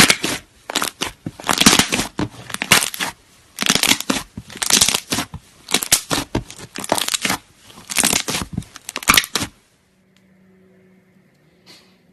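Slime being squeezed and kneaded by hand, with crackling squishes about twice a second that stop about ten seconds in.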